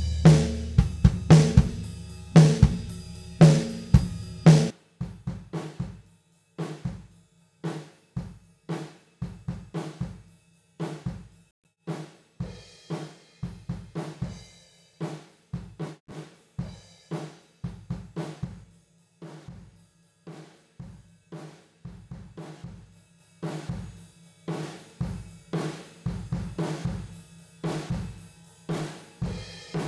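Multitrack acoustic drum kit recording playing back, with kick, snare, toms, hi-hat and cymbals, through the Acustica Audio ARCTIC compressor/saturator plugin. Heavy low hits fill the first four seconds, then a lighter pattern of hits follows, which grows louder and denser about two-thirds through as the compressor squashes the kit with around 11 dB of gain reduction.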